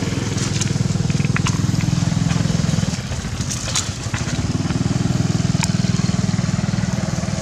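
A small engine running steadily, easing off for a moment about three seconds in, with scattered light crackles of dry leaves.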